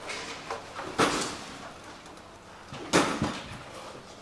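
Two sharp knocks, about a second in and again near three seconds, with a short echo as in a large hall, over faint background noise.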